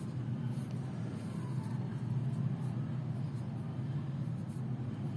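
Steady low background hum, with faint scratching of a ballpoint pen writing on notebook paper.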